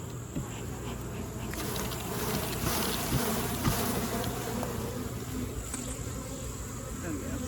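Honeybees buzzing around an open hive, a steady hum from a calm colony, with a few faint clicks.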